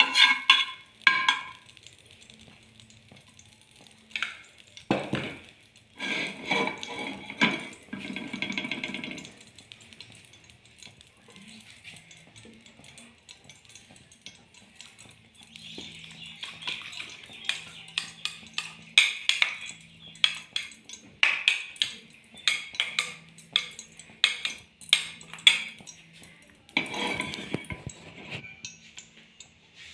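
Metal spoon scraping and clinking against an aluminium frying pan while ghee melts in it, with scattered sharp clinks and knocks of kitchen utensils and a couple of louder knocks.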